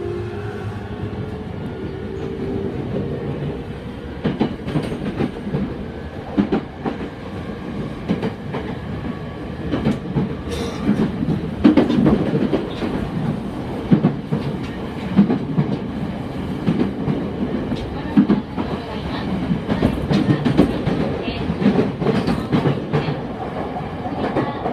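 Rinkai Line 70-000 series train with renewed traction equipment, heard from inside the car: a motor whine rises a little over the first few seconds, then the train runs on with a steady rumble and repeated clacks of the wheels over rail joints.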